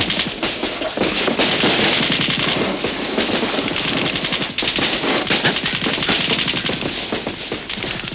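Sustained gunfire: rapid shots, many a second, overlapping without a break.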